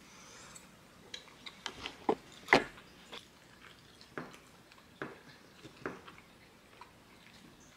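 Metal cutlery clinking and scraping against a ceramic plate during a meal, about eight light knocks scattered through, the loudest about two and a half seconds in, with quiet chewing between.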